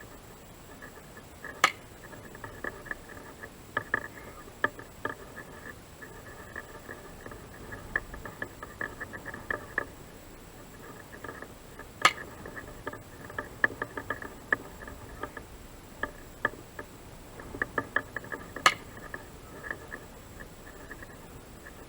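Three sharp cracks of a Ruger 10/22 rifle firing .22 LR, the second about ten seconds after the first and the third about six and a half seconds later. Between the shots there are many small irregular clicks and ticks over a faint, steady high-pitched tone.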